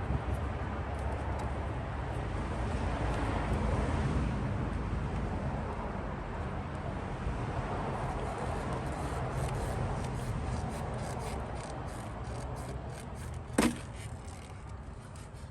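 Rubbing and handling noises from hand work on parts in a car's engine bay, over a steady hiss, with a single sharp knock near the end.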